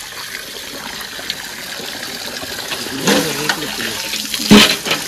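Water sloshing and splashing as blankets are washed by hand in basins of soapy water, with one louder sudden sound near the end.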